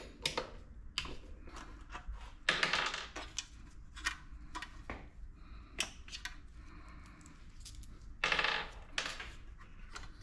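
Hand tools and hardware clicking, clinking and rattling as a ratchet wrench works the 10 mm bolts of a small diesel engine's plastic fan shroud and the shroud, with its recoil starter, is worked loose and lifted off. Scraping, rattling handling noise comes twice, about two and a half seconds in and again near the end.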